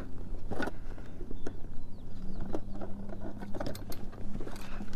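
Scattered light clicks and knocks from a spinning rod and reel being worked while jigging, over a steady low hum.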